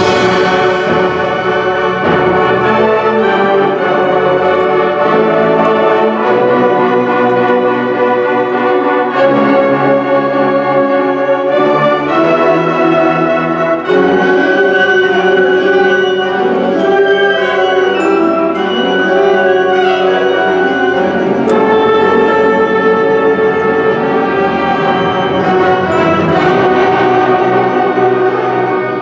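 A symphonic wind band of brass, woodwinds and percussion playing loud, full sustained chords.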